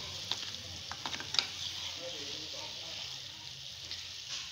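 Boiled mash (urad) dal frying in its masala, sizzling steadily, with a few sharp clicks of the stirring spoon against the pot in the first second and a half.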